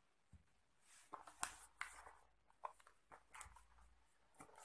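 Faint rustling, scraping and a few small clicks of a cardboard phone box being handled as its inner flaps are opened to reach the charger and cable, starting about a second in.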